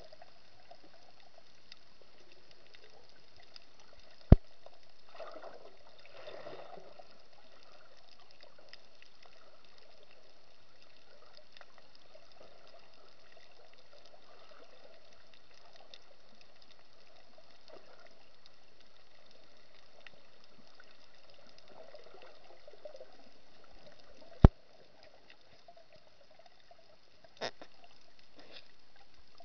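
Underwater sound as heard by a submerged camera: a steady muffled hiss with patches of gurgling and bubbling, and sharp knocks about four seconds in and again near the end.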